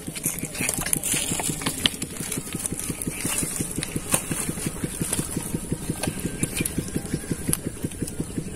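A small engine running steadily at idle, with a fast even putter of about eight beats a second and a steady high hiss above it.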